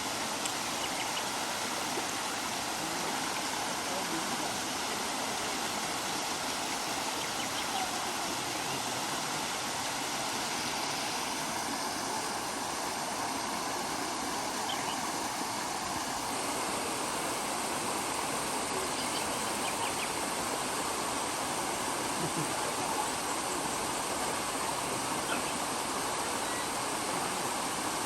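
Steady rush of flowing water in a rocky stream.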